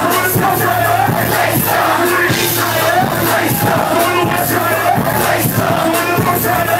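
Loud music with a crowd singing and shouting along.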